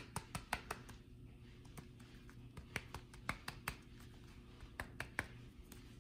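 Plastic cards clicking and tapping against each other as a handful is handled and slid into a Saffiano leather card holder. Sharp clicks come in three clusters: at the start, around three seconds in, and about five seconds in.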